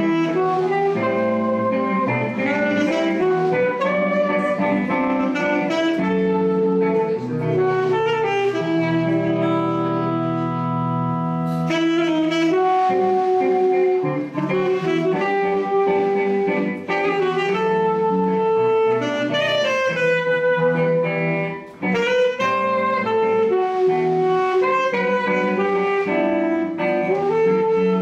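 Saxophone playing a melody over electric guitar accompaniment, a live duet. The music pauses very briefly about three-quarters of the way through.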